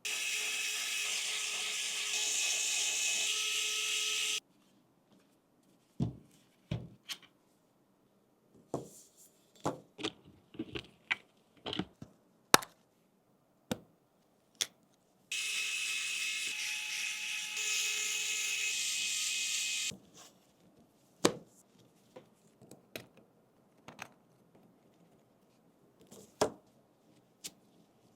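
A small electric screwdriver runs twice, about four to five seconds each time, with a steady whine, while parts of the keyboard are screwed together. Between the runs, sharp clicks and taps of small parts being handled and set in place.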